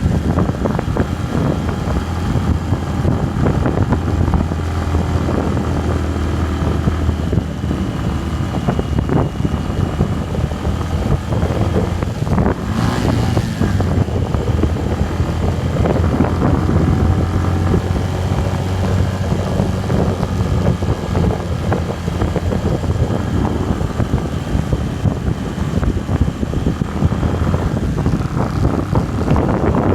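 Motorcycle engine running steadily during a ride, with wind buffeting the microphone.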